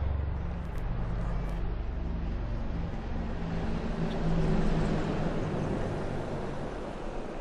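A formation of five Apache attack helicopters flying past, their rotors and engines making a steady low drone that swells about four seconds in and then slowly fades.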